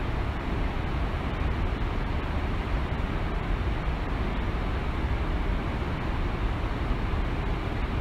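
Waterfall rushing steadily: a continuous, even wash of falling water with a strong deep rumble underneath.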